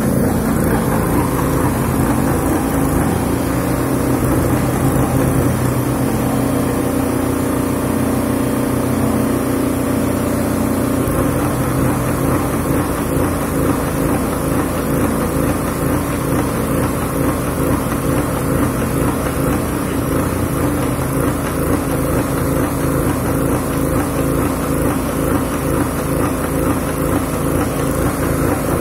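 Engine of an articulating boom lift (manlift) running steadily while the boom raises and positions its basket.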